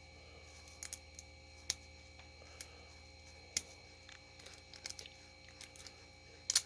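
Pin-tumbler padlock being picked with a hook pick and tension wrench: faint, irregular small clicks and ticks of the pick working the pins, with a sharper, louder click near the end.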